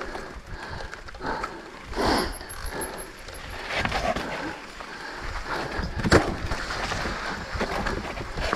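Mountain bike riding down a dirt singletrack: knobby tyres rolling over dirt and leaf litter with the bike rattling, and sharp knocks about two and six seconds in.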